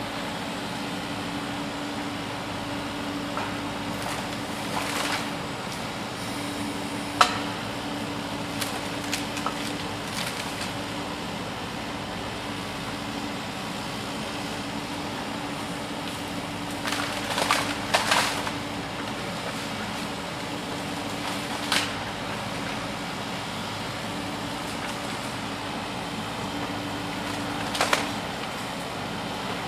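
Excavator and dump truck working: a steady machine hum with a faint held tone, broken by scattered knocks and clatters. The sharpest knock comes about seven seconds in, and a cluster of clatters comes around eighteen seconds.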